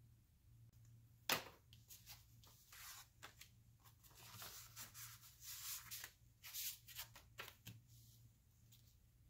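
Paper and card rustling and sliding in irregular bursts as a greeting card and envelopes are handled and moved about on a desk, starting with one sharp tap about a second in.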